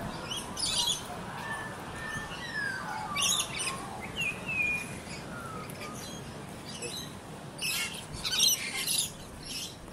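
Birds calling: several short, harsh high-pitched squawks in clusters, mixed with a few clear whistled notes that fall in pitch.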